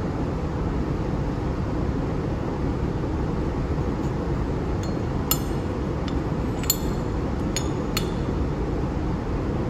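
Flat steel plates clinking as they are set down and stacked one on another, about six sharp clinks in the second half, over a steady low rumble of background room noise.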